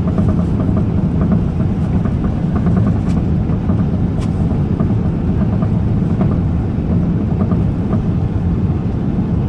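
Steady, loud low rumble of a vehicle running, with no change in level.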